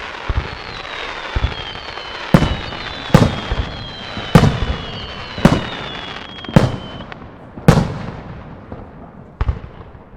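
Aerial firework shells bursting about once a second, each a sharp bang that rings off into an echo, with crackling between them. Thin whistles sound over the first seven seconds.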